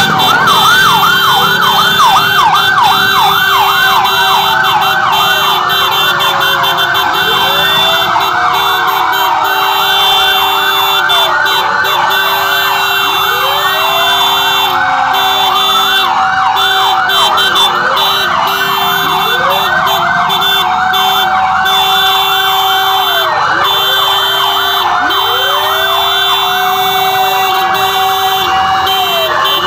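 Several emergency-vehicle sirens from ambulances and fire trucks sounding at once and overlapping: fast, repeated yelps over slower rising-and-falling wails, with a steady low tone underneath.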